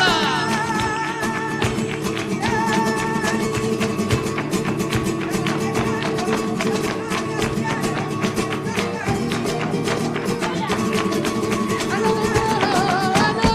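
Flamenco music: a singer's long, wavering held notes over guitar, with a dense run of sharp percussive hits throughout.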